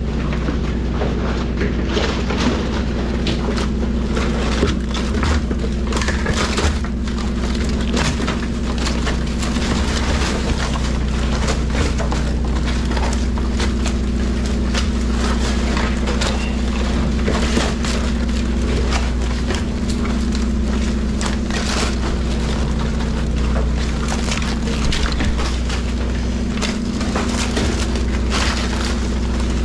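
Live Dungeness crabs clattering in a heap: many irregular crackling clicks of hard shells and legs knocking and scraping against each other as they are handled. Under them runs a steady low machinery drone.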